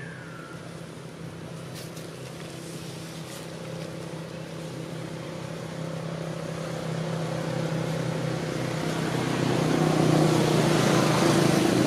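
A motor engine running at a steady pitch, growing steadily louder toward the end.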